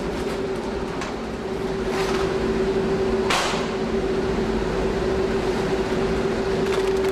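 Factory machinery running with a steady hum. Heavy paper sacks rustle and scrape briefly a few times as they are handled, the clearest about three seconds in.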